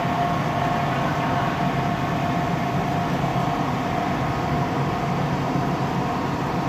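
A machine running steadily: an even, engine-like drone with a steady whine held above it.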